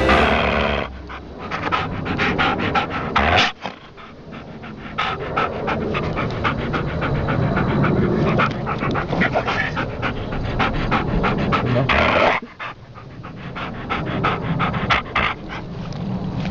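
A dog panting rapidly and steadily, with people talking at times.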